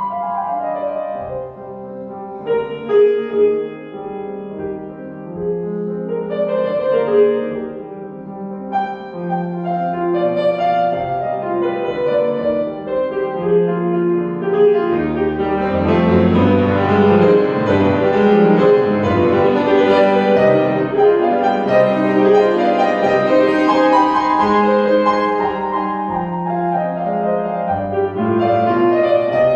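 Piano music: a piano piece played with many held notes in several registers, growing fuller and louder from about halfway through.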